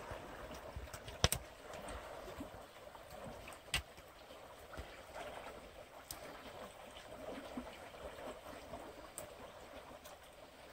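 Shallow stream water rushing steadily over rocks, with two sharp clicks standing out, about a second in and again near four seconds in.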